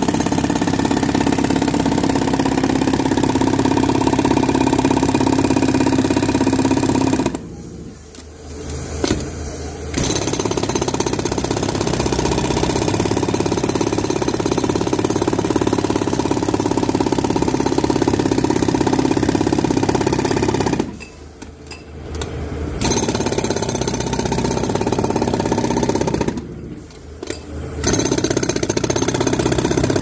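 Pneumatic jackhammer (air-powered concrete breaker) hammering its chisel bit into a concrete slab with a rapid, continuous pounding. It stops briefly three times, about 7 s, 21 s and 26 s in, for a second or two each, then starts again.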